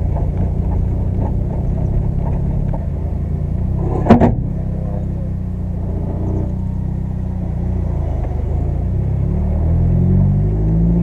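Volkswagen car engine running at low speed, heard from inside the cabin, with one sharp knock about four seconds in. Near the end the engine note rises and then falls again as the car pulls away.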